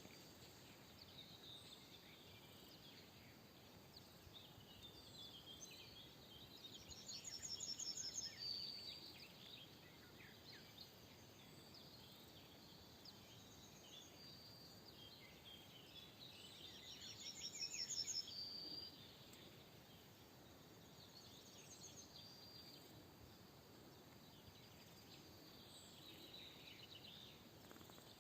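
Faint birdsong, with scattered chirps from several birds. One bird sings a louder, rapid trilling phrase twice, about ten seconds apart.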